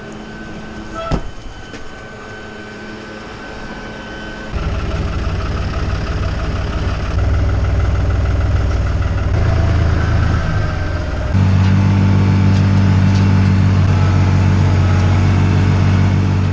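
Diesel tractor engine running, growing much louder about four and a half seconds in and louder again, with a stronger hum, about eleven seconds in, as it is revved up or put under load.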